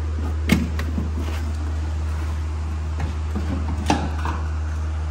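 A few sharp metallic clicks and knocks, two close together about half a second in and one near four seconds, as a new front strut and its mounting nuts are handled and fitted. A steady low hum sits under them.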